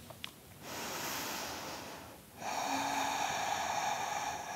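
A woman breathing slowly and deeply, close to the microphone: a long breath in and a long breath out, with a short pause between them about two seconds in.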